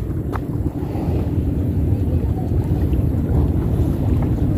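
Wind buffeting the microphone at the sea's edge: a heavy, uneven low rumble that rises and falls.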